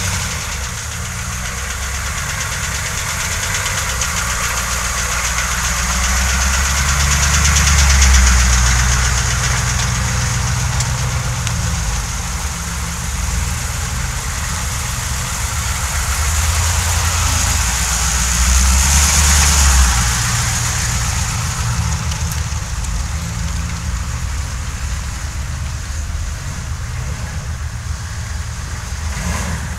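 Humvee V8 diesel engines running as the vehicles drive one after another through deep mud, a low rumble that swells louder twice as vehicles come close.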